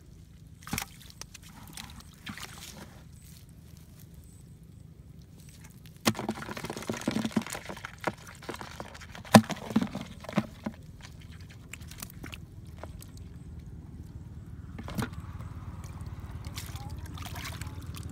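Muddy water sloshing and splashing as hands work in a small water-filled hole. The busiest stretch, from about six to eleven seconds in, has several sharp knocks and splashes.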